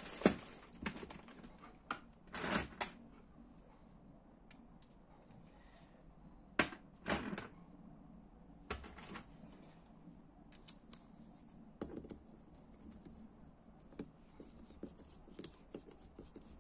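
Irregular light clicks and taps of small engine bolts and parts being handled and fitted on the workbench, with a few louder knocks early on and about seven seconds in.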